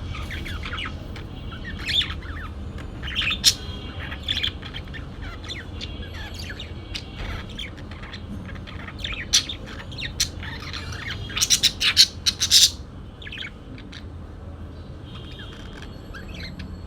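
Parakeets chirping and chattering in quick, short calls, with a run of loud, sharp calls about eleven to twelve and a half seconds in, over a steady low hum.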